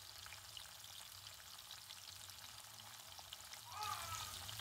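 Sardines shallow-frying in sunflower oil in an iron pan: a faint, steady sizzle with fine crackles of spitting oil, growing louder about four seconds in.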